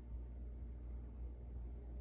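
Faint steady low hum under a soft hiss, close to room tone, from the aquarium's running equipment.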